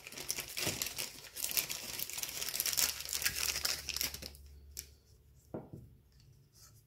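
Plastic bag crinkling and rustling as it is handled, for about four seconds, then dying away to a couple of light clicks.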